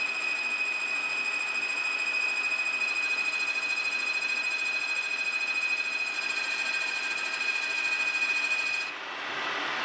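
Metal lathe boring the inside of a steel tube with a carbide-insert boring bar, taking a deep cut of over 0.100 inch. A steady high whine runs over the cutting noise and stops abruptly about nine seconds in, leaving a duller hiss.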